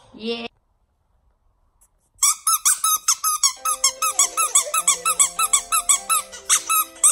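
Pink rubber pig squeeze toy squeaking over and over, about five squeaks a second, starting about two seconds in, with music playing underneath.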